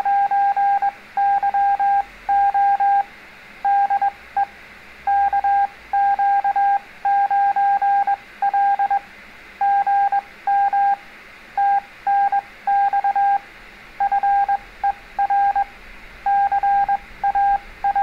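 CW Morse code sent as a single steady beep, keyed on and off in short dits and longer dahs. It spells out the reply to a CQ: 'N9YO DE KQ9L GM TNX FER CALL' (good morning, thanks for the call).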